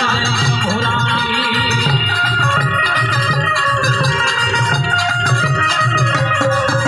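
Instrumental passage of Gujarati garba music: held harmonium tones over a steady, repeating drum beat, with light high percussion ticking along.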